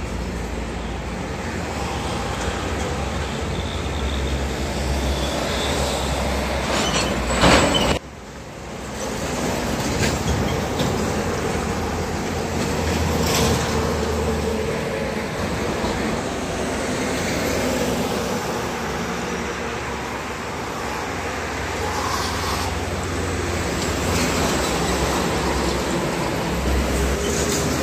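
Heavy traffic on a multi-lane toll road: the diesel engines and tyres of passing trucks and buses as a steady rumble. A loud rush builds to a peak about seven seconds in and cuts off abruptly.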